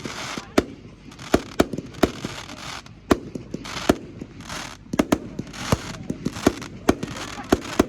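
Many fireworks going off at once: sharp bangs at irregular intervals, about two a second, with hissing crackle between them.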